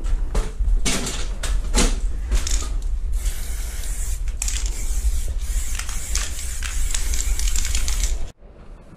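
Aerosol spray-paint can spraying: several short bursts of hiss, then one long continuous spray from about three seconds in that cuts off suddenly near the end. A steady low rumble runs underneath.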